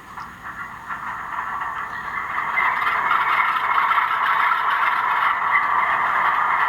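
HO-scale GE C39-8 model locomotive's DCC sound decoder playing the diesel engine startup sequence through its small onboard speaker. Clicks and clatter lead into the engine sound, which builds over about two seconds and then settles into a steady run.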